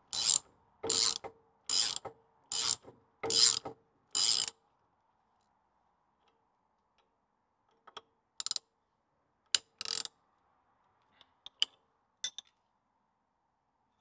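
Socket ratchet clicking as it winds a stud into a Land Rover Series 2 swivel housing: six even strokes, about one every 0.8 s, then a pause and a few shorter, scattered clicks near the end.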